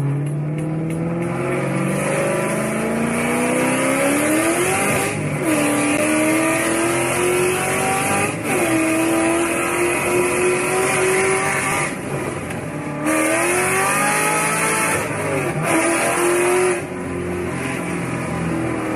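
A Ford Mustang's engine revving hard, its pitch climbing and then dropping sharply about four times, over a steady hiss of tyre noise.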